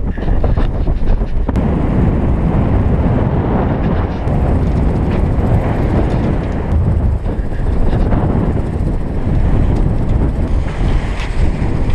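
Wind buffeting the microphone over the rush of water along a sailing yacht's hull as it moves fast through choppy water. The sound is a loud, steady noise.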